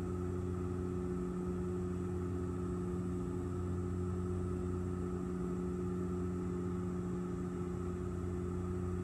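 Steady drone of an airliner's engines heard inside the passenger cabin, with several constant hums over an even rushing noise.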